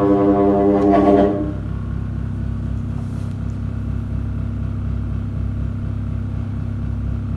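LG Fuzzy Logic washing machine running, a steady low hum and rumble from its drive, loud for a drum turning only lightly. The repairer puts the noise down to a faulty drive motor rather than the gearbox, since it is there from the start.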